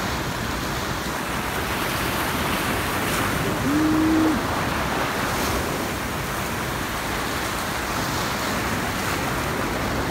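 Surf washing and breaking against jetty rocks, a steady rushing wash of water. About four seconds in, a brief low hum sounds over it for about half a second.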